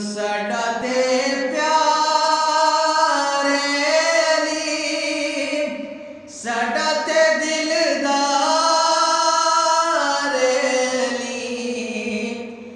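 A man singing a naat, Urdu devotional poetry in praise of the Prophet, in long drawn-out phrases with held, wavering notes; he breaks for breath about six seconds in and again near the end.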